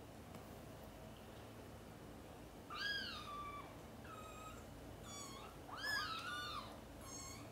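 Kittens mewing: about six short, high-pitched mews, each rising and falling in pitch, beginning about three seconds in, with two calling over each other near the end.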